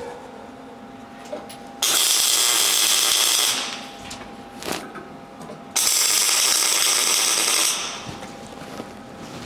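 MIG welder arc crackling in two short welds of about two seconds each, starting suddenly. The wire speed is set high, which the welder corrects right after by turning it down.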